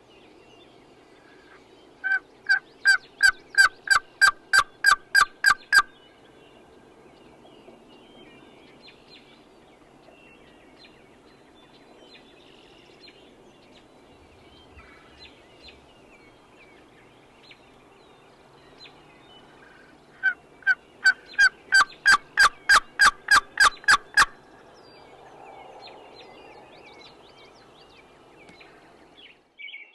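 Turkey yelping: two long series of a dozen or so evenly spaced yelps, about three a second and some four seconds each, the second series starting about eighteen seconds after the first.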